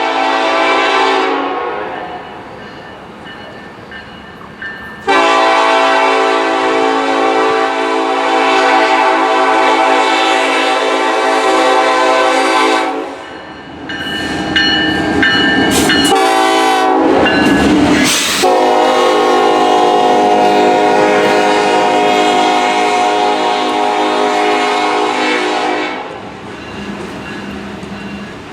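Diesel locomotive air horn sounding a chord in long blasts: one ending a second or so in, one held about eight seconds, and another held about seven seconds toward the end. Between the last two blasts there is a few seconds of rail clatter and rumble from the moving train.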